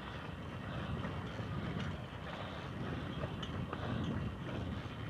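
Hercules Prima 6 moped's small two-stroke engine running steadily while riding flat out at about 15 km/h, heard as a low, fluttering rumble.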